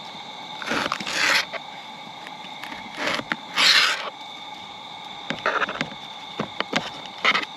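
Knife slicing a red bell pepper on a plate: about five short scraping cuts through the flesh, the loudest about three and a half seconds in, with small clicks between them.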